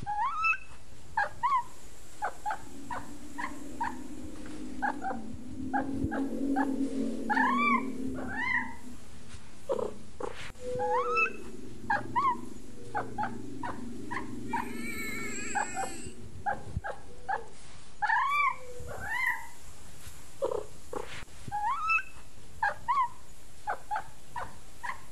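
Kitten mewing over and over in short high calls, about two a second, with a low steady rumble under them through the middle stretch.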